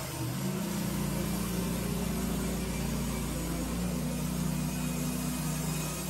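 Norwood portable bandsaw mill running with its band blade cutting through a walnut log: a steady humming drone with a hiss, shifting slightly in pitch about half a second in and again about four seconds in.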